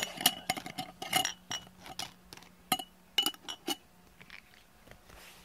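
Glass jars with metal screw-top lids clinking and clicking as the lids are handled and screwed on and the jars set on a wooden table: a run of sharp clinks that stops about four seconds in.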